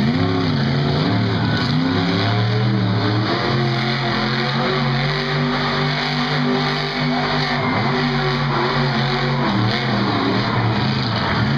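El Toro Loco monster truck's supercharged V8 engine revving up and down, its pitch rising and falling again and again, with a steadier hold in the middle.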